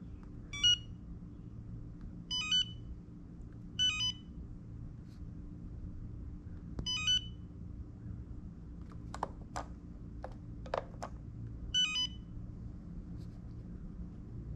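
Touch-screen RC radio transmitter beeping as its menu is pressed through: short electronic beeps every few seconds, several in quick pairs. A few sharp clicks come about nine to eleven seconds in.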